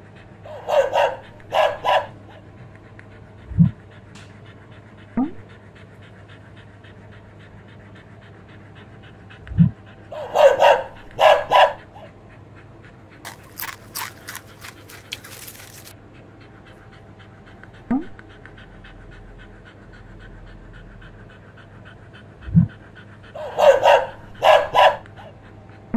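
A dog panting steadily, with pairs of short pitched calls three times and a quick run of clicks near the middle.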